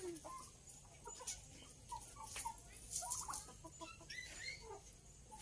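Chickens clucking softly in a scatter of short notes, with a few brief clicks among them.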